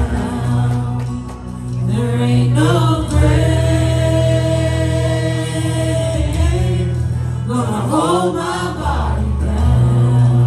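Live gospel praise music: voices singing over a steady low bass accompaniment, with one long held note in the middle.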